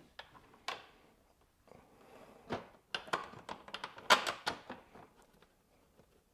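Scattered clicks, taps and light knocks of hands handling a motorcycle's headlight mount and bracket parts while starting bolts by hand. The sounds come in a few separate bunches, the loudest a little after four seconds in.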